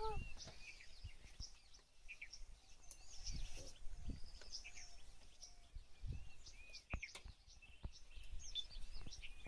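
Several birds chirping and calling, short rising and falling notes scattered throughout, with a few dull low thumps in the middle.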